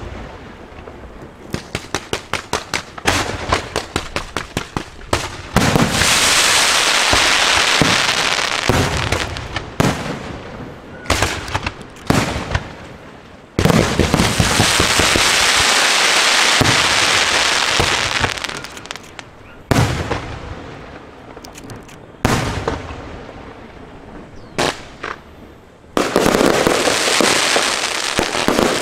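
Aerial fireworks display: sharp shell bursts and a fast run of evenly spaced reports, about four a second, in the first few seconds. Several long stretches of dense hissing follow as ground fountains spray and many shells burst at once.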